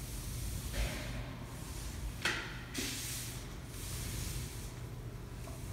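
Oil pastel scraping in several short strokes across brown paper taped to a wall, the sharpest stroke about two seconds in, over a steady low hum.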